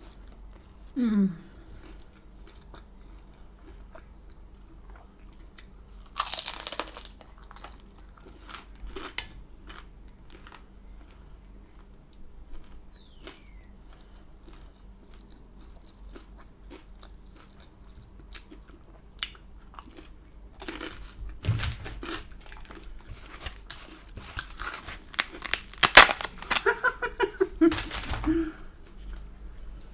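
Close-miked chewing and crunching of crisp garlic naan bread, with many small wet mouth clicks. There is a louder crunch about six seconds in and a busier stretch of louder chewing near the end, with a short hum from the eater.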